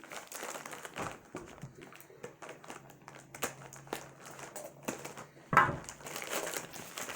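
Crinkly packaging being handled and unwrapped, an irregular rustling with small clicks and a louder rustle about five and a half seconds in.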